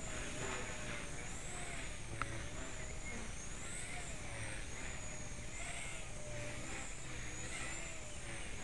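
A Blade 130X micro RC helicopter in flight, its 8000kV AEO Hummingbird brushless main motor and rotor making a whine that wavers up and down in pitch. It is running at 100% throttle on the ESC's governor.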